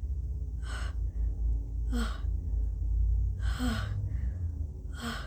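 A woman's sharp gasping breaths, four short catches spaced about a second or so apart, the build-up of a sneeze from a tickle in her nose. A steady low rumble runs underneath.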